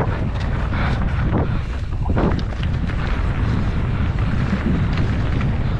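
Wind buffeting the microphone over the rattle and rumble of a mountain bike descending a rough trail at speed, with a few sharp knocks around a second and a half to two seconds in.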